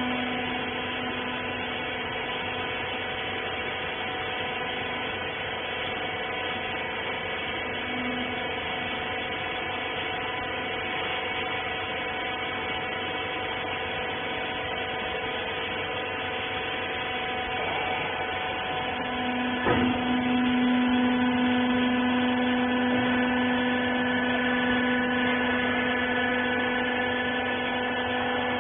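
Hydraulic rag baler's electric motor and pump running with a steady hum. About two-thirds of the way through there is a short click, after which the hum grows louder.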